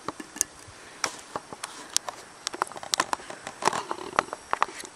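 Irregular light clicks and taps of a spoon and metal camp pots being handled as gravy is spooned into a pot of mashed potatoes.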